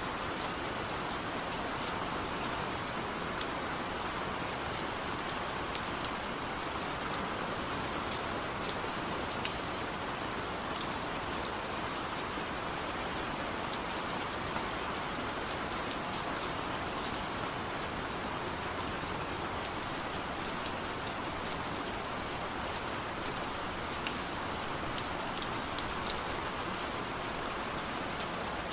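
Steady rain falling: an even hiss with fine drop ticks scattered through it.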